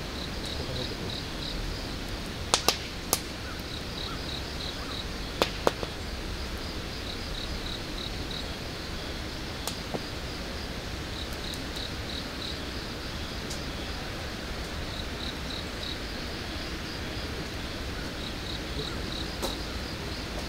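Crickets chirping in a steady run of short pulsed trills. A few sharp clicks break in now and then, the loudest pair about two and a half seconds in.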